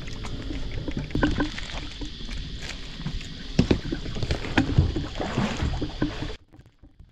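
Water sloshing against an inflatable stand-up paddleboard, with scattered knocks and bumps on the board as it is brought in to the shore. The sound cuts off abruptly a little over six seconds in.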